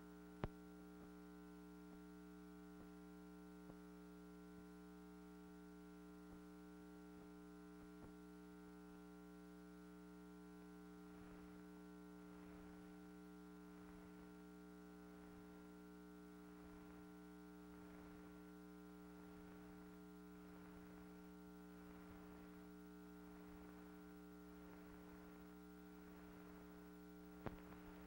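Near silence: a faint steady electrical hum with no soundtrack, a single click near the start and another near the end.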